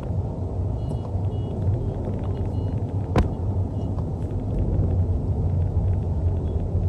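Steady low rumble of a car heard from inside its cabin, with a single sharp click about three seconds in.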